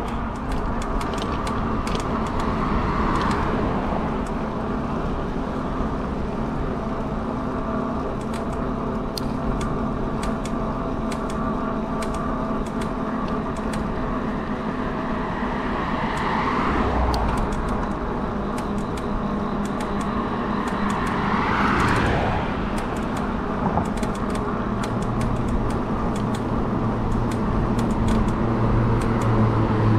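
Modded fat-tire e-bike climbing a steep hill, its motor and tyres running steadily under heavy load, the kind of climb that quickly drains the battery toward cutoff voltage. Traffic swells past a few times.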